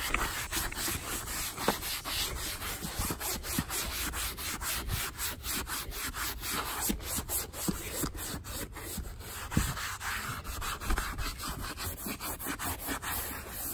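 A non-woven scuffing pad rubbed hard back and forth over a leather car seat in quick, repeated strokes, scuffing up the leather so dye will grip.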